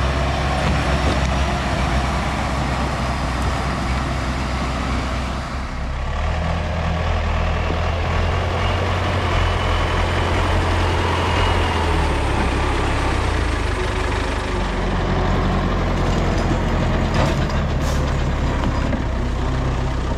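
The diesel engine of an LKT 81 Turbo forestry skidder, running steadily as the machine drives along a forest track. Its note shifts about six seconds in.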